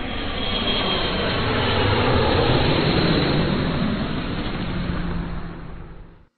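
Intro whoosh sound effect: a long rush of noise that swells over the first few seconds, then fades out near the end, with a low steady hum joining it for its last second or so.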